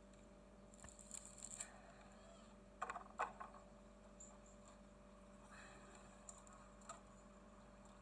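Near silence broken by a few faint knocks and rustles of musical instruments being handled as a mandolin is put down and a saxophone picked up; the loudest is a couple of knocks about three seconds in.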